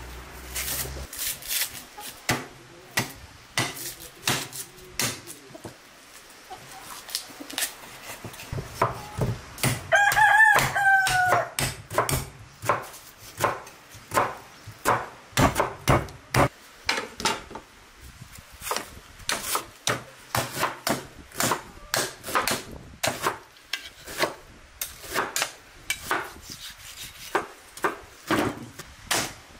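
A rooster crows once, about ten seconds in, the call dropping in pitch at its end; it is the loudest sound. Around it, a knife makes a steady run of short, crisp cutting sounds as meat is carved from a raw leg of lamb.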